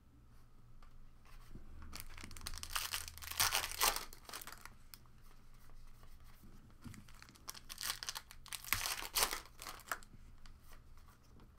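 Foil trading-card pack wrapper being torn open and crinkled by hand, in two bouts of rustling, one about two seconds in and the other about eight seconds in.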